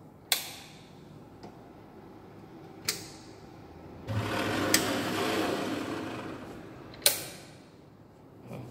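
Sharp clicks of a laboratory jar-test flocculator's switches and knob being worked. In between, its paddle-stirrer motor whirs for a few seconds from about halfway, as the stirring starts.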